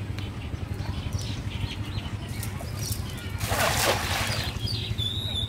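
A cast net landing on a pond, a brief splash from its weighted rim hitting the water about three and a half seconds in. Faint bird chirps and a steady low hum are heard throughout.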